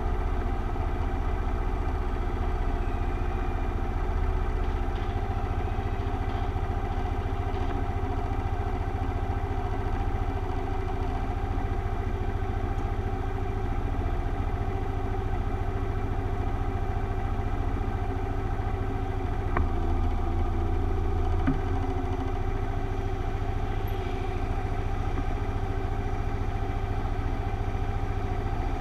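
Motorcycle engine idling steadily while stopped, with two faint clicks a little past two-thirds of the way through.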